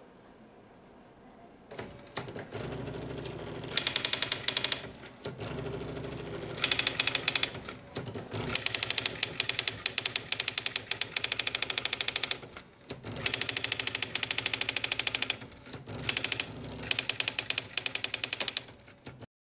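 Brother Electra 60 electric typewriter printing under computer control. Its motor hum comes on about two seconds in, then several runs of rapid key strikes follow, with short pauses between them. The sound cuts off abruptly near the end.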